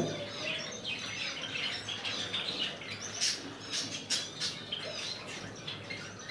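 Caged Java sparrows and other small finches chirping, with many short, quick, high calls overlapping. There is a cluster of brief scratchy sounds about halfway through.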